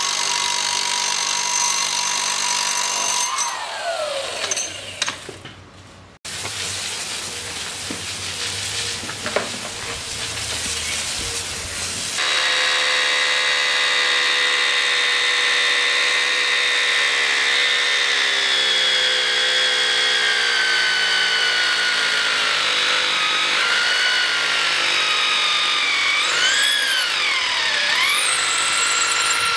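Electric power tools working into a pool's concrete wall along a crack. A handheld electric hammer runs steadily and winds down a few seconds in. After a cut, a drill bores holes for the injection packers, its motor whine slowly dropping in pitch under load and wavering near the end.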